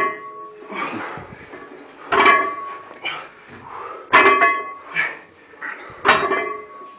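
A 100 kg barbell set down for touch-and-go deadlift reps: four clanks about two seconds apart as the plates touch the floor, each ringing briefly. Between the clanks come the lifter's heavy, hissing breaths.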